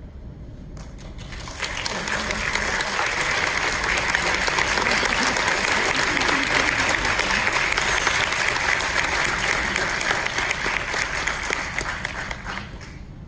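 Audience applauding: a few scattered claps about a second in swell into full, steady applause, which dies away near the end.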